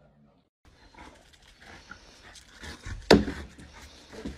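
A bulldog breathing noisily as it noses at a wooden cornhole board, with one sharp knock about three seconds in.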